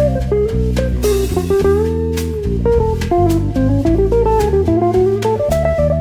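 Jazz band playing an instrumental passage with no vocals: a single-note solo line that glides between notes and holds one note about two seconds in, over bass guitar and drum kit with cymbal strokes throughout.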